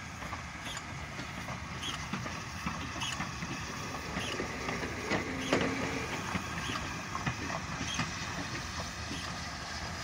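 Steam-hauled passenger train rolling slowly past, with a steady rumble and regular clicks about twice a second. There is a brief louder sound with a short held tone about halfway through.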